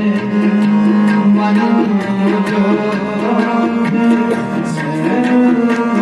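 Kirtan music with no singing: tabla strokes over a sustained melody instrument holding a steady note with moving tones above it.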